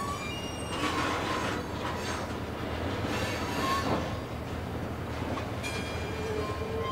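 A freight boxcar rolling slowly on curved yard track during switching, its steel wheels squealing against the rails over a steady low rumble. The squeal is loudest from about one to four seconds in.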